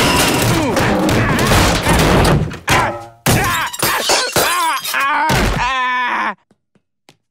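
Cartoon slapstick fall with sound effects: about three seconds of crashing and shattering glass as stage lights break, then a man's long strained yelling that ends in a heavy thud about six seconds in. Near silence after that.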